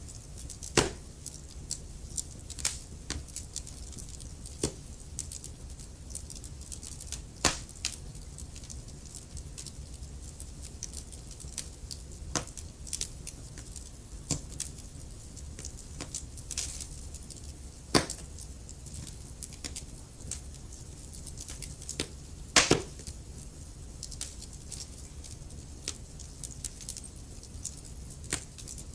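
Wood fire burning, with a steady low rumble and irregular crackling of logs, punctuated by a few loud sharp pops.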